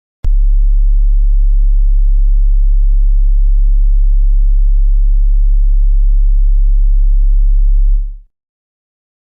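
A loud, very deep steady hum, a low sine-like tone with a faint rougher layer above it. It starts suddenly with a click, holds for about eight seconds, then fades out quickly.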